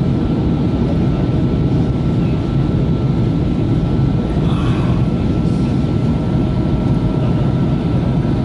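Steady cabin noise inside a Boeing 737NG on approach: a deep rumble of the CFM56 engines and airflow, with a faint steady high whine above it.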